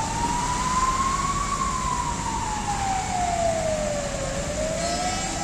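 Fire engine siren on an emergency run, in a slow wail. It rises to its peak about one and a half seconds in, falls to a low about four seconds in, then climbs again, over the steady noise of road traffic.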